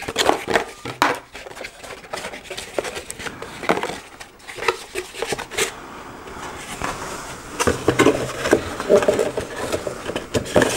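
Cardboard packaging being handled: a box insert rustling and scraping, with many short knocks and clatters against a wooden desk.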